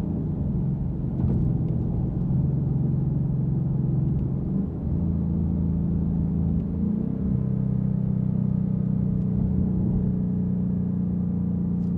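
The 5.0-litre V8 of a 2024 Ford Mustang GT heard from inside the cabin at a steady cruise, through a MagnaFlow xMOD cat-back exhaust in its straight-pipe xTreme Delete configuration, Track mode. It holds a steady low engine note, which briefly changes around five seconds in and again around seven seconds in.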